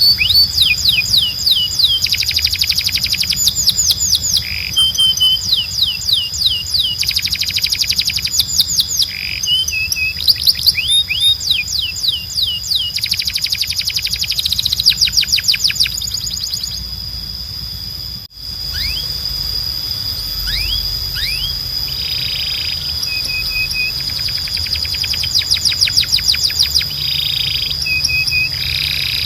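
Timbrado canary singing: repeated trills of rapid falling notes, each run lasting a second or two, with short pauses between. The song briefly cuts out about two-thirds of the way through.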